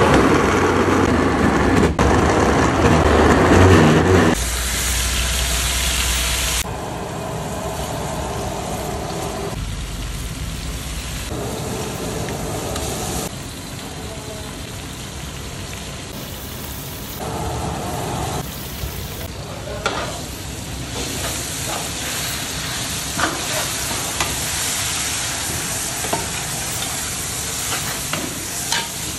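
An electric blender runs for about four seconds at the start. After that, onions, carrots, garlic-chilli paste and herbs fry in a large steel pot: a steady sizzle, with scrapes and clicks as a metal ladle stirs.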